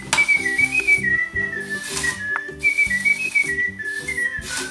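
A whistled tune of short stepping notes over background music with a steady beat, with brief bursts of hiss at the start, about two seconds in, and near the end.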